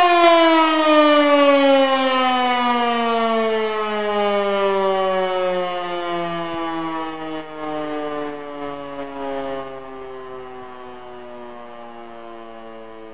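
E57 electric motor siren winding down after being switched off: its wail falls steadily in pitch and fades as the rotor slows.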